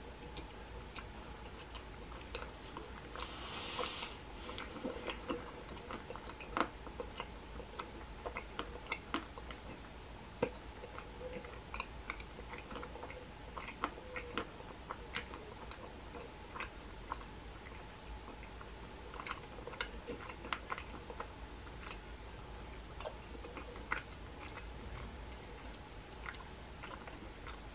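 Chewing a macaron with the mouth closed: scattered soft clicks and smacks of the jaw and lips, over a faint steady hum. A brief hiss, like a breath, about four seconds in.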